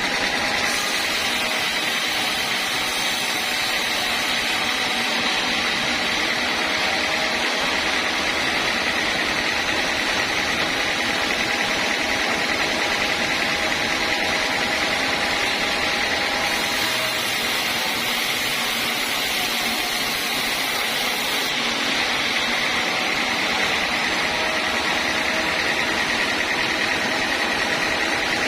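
Sawmill saw running steadily under power, with a constant high whine over a dense hiss; the hiss brightens for a few seconds at the start and again in the second half.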